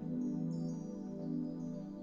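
Soft new-age ambient background music with sustained tones and light high chiming notes.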